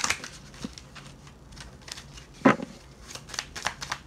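Tarot cards being shuffled and handled: a run of soft, irregular clicks and flicks, with one louder tap about two and a half seconds in.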